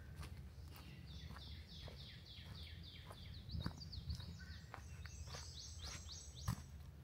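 A songbird singing a long series of quick high notes, each falling in pitch, several a second and briefly faster in the middle. Footsteps on the forest trail sound throughout, a few of them louder than the song.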